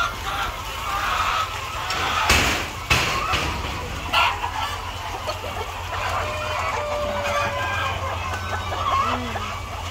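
A large flock of brown hens clucking and calling inside a crowded poultry house, with a steady low hum underneath. A few sharp knocks sound about two to three seconds in and once more near four seconds.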